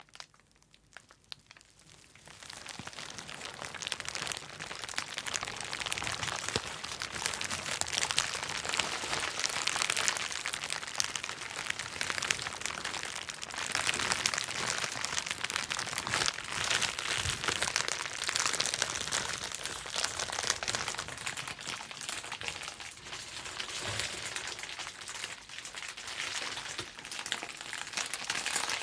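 Bubble wrap popping in a dense, rapid crackle of many small pops. A few scattered pops at first, then it builds to a continuous crackle about two seconds in.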